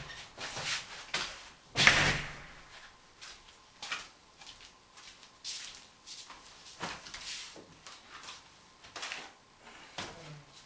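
Irregular knocks and clicks, the loudest about two seconds in, with quieter ones scattered through the rest.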